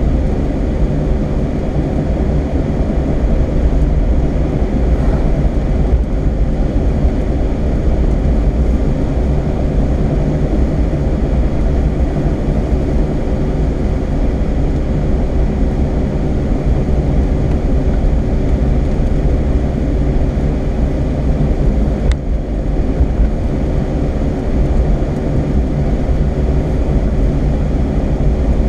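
Steady engine and road noise of a car driving at speed, heard from inside the cabin, with a low hum.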